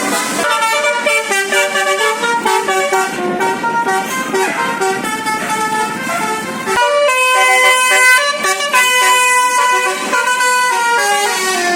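Bus musical air horn (telolet basuri) playing a tune in quick stepped notes, changing to a new phrase about seven seconds in.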